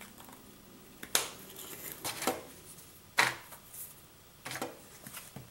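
A spice shaker being handled: four short, sharp taps and clicks about a second apart as it is shaken over a bowl of rub and set down on a granite countertop.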